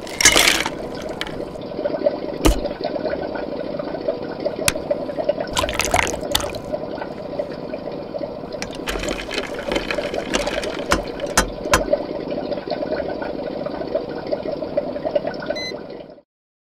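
Ingredients tipped into a steel pot with a loud splash, then liquid in the pot bubbling steadily on an induction cooktop, with a few sharp knocks. The cooktop beeps briefly near the end.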